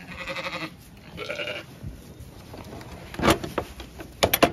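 Zwartbles sheep bleating twice in quick succession, then a sharp knock about three seconds in and a quick run of knocks near the end at the wooden pen gate.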